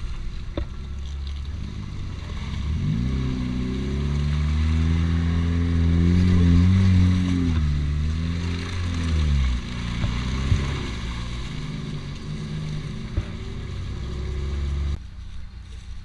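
Lada Niva's four-cylinder petrol engine under load on a muddy track, revving up about three seconds in, holding high for several seconds and dropping back after about nine seconds, then running steadily, with a rushing noise over it. The sound drops off abruptly near the end.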